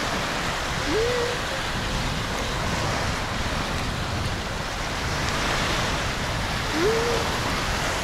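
Steady wind buffeting the microphone over small waves washing onto a sandy shore. Twice, about a second in and near the end, a person gives a short rising "mm" hum while chewing.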